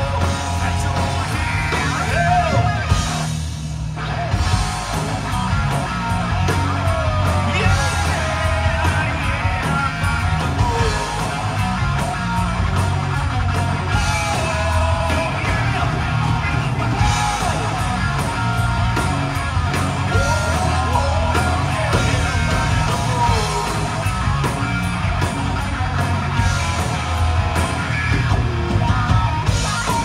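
Live rock band playing: a lead singer's vocal line over electric guitar, bass guitar and a drum kit.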